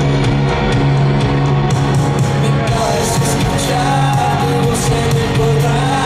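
Live rock band playing, guitar over drums with cymbals keeping a steady beat; a man's singing voice comes in about halfway through.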